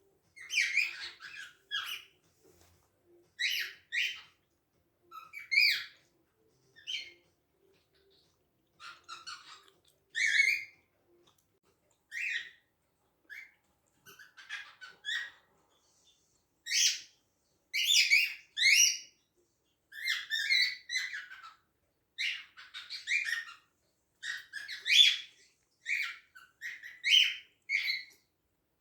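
Cockatiels chirping and calling: short, bright chirps in clusters with pauses between, coming more often through the second half.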